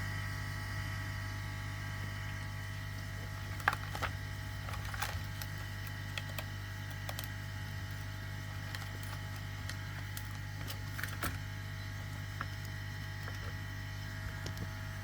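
Light clicks and taps of laptop parts and a display cable being handled on a workbench, a few at a time, over a steady low electrical hum with a thin high whine.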